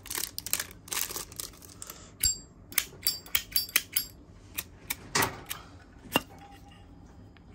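Zippo lighter being handled: a run of sharp metallic clicks and clacks from its case and hinged lid, with one short ringing clink about two seconds in.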